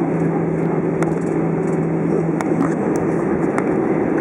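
Steady cabin noise inside an Airbus A320 taxiing after landing: a continuous low rumble with a constant hum, and a few faint clicks.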